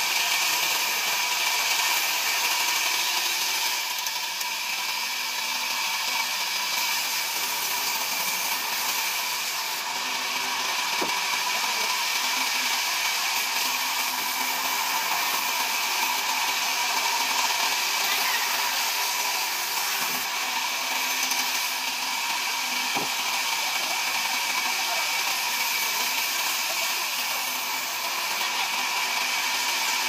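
Large vertical band saw running steadily, its blade and motor making a continuous whirring hum, with a few faint knocks from wood being handled.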